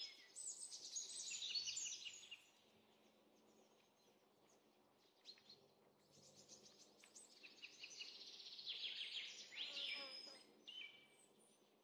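Faint songbirds chirping and trilling in two spells, one in the first couple of seconds and a longer one from about seven seconds in, with quiet gaps between.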